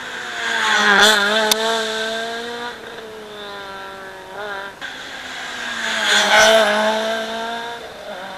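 Rally car engines passing close by at speed, the engine note dropping in pitch as each goes past: one about a second in and another about five seconds later, with engine blips in between. A single sharp crack sounds just after the first pass.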